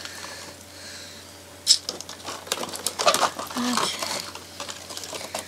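Hands handling a doll and its plastic packaging: light rustling and fumbling, with one sharp click about a second and a half in.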